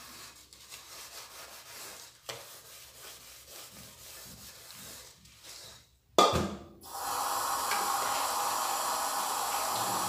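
A sponge scrubs an aluminium pot with soapy paste in soft rubbing strokes. About six seconds in there is a sharp knock, and then a kitchen tap runs steadily while the pot is rinsed under it.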